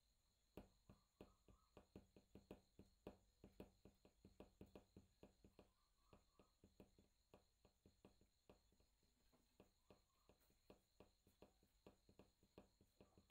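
Near silence with faint, irregular clicks, a few a second.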